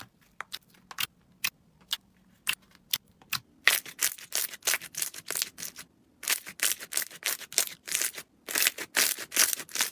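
Slime being squeezed and pressed by hand, giving sharp clicking pops. Single clicks come every half second or so at first, then from about four seconds in a dense run of crackling with two brief pauses.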